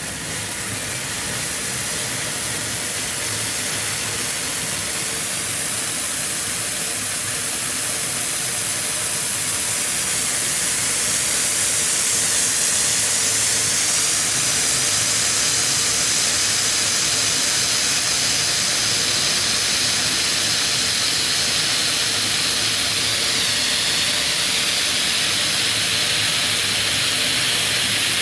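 Black Cat Firestix stick fountains burning, a loud, steady hiss of spraying sparks. The hiss grows over the first few seconds as more of the sticks catch, then holds even.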